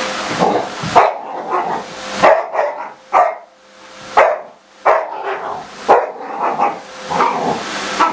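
Labrador retriever barking at a vacuum cleaner: about nine or ten separate loud barks, spread unevenly.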